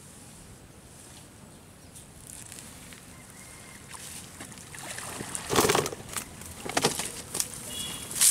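Cast net hauled out of a pond: after a few quiet seconds, water splashes and streams off the mesh in a loud burst past the middle and another about a second later, with smaller splashes and drips after.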